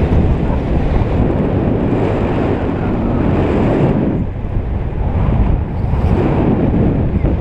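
Airflow buffeting the microphone of a camera carried by a paraglider pilot in flight: a loud, gusty wind rumble, easing for a moment about four seconds in.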